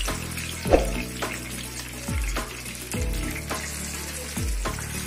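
Whole red snapper frying in shallow oil in a pan, a steady sizzle, with a few sharp clicks. Background music with a repeating low bass figure plays over it.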